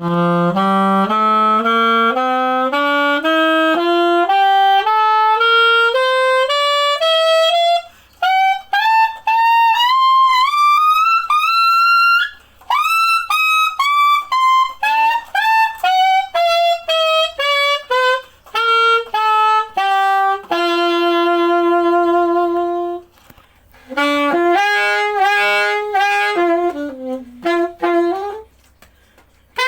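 Yamaha YAS-855 Z Custom alto saxophone played solo: a slow scale climbing note by note over the first eight seconds, then quicker runs up and down, a long held note, and a short melodic phrase near the end.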